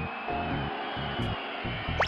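Cartoon soundtrack music: sustained notes over a low, pulsing beat, with a faint sliding high tone.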